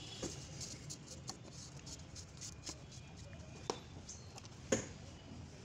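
Scattered faint clicks and light knocks of hands working the oil filter housing cap onto a diesel engine, with the sharpest knock near the end.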